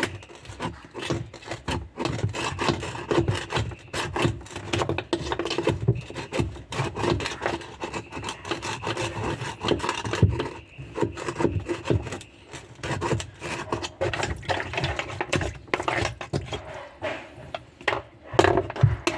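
Brush scrubbing a washing machine part clean, with rapid, irregular rasping strokes.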